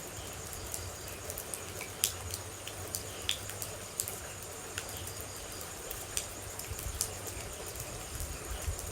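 Rain falling steadily, with individual water droplets dripping and ticking at irregular intervals, a few heavier drops standing out sharply.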